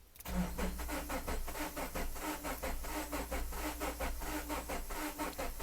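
2011 Subaru Forester's 2.5-litre DOHC flat-four being cranked by the starter, with a steady rhythm of pulses at about five to six a second, starting just after the beginning. The engine turns over but does not fire: a crank, no-start fault.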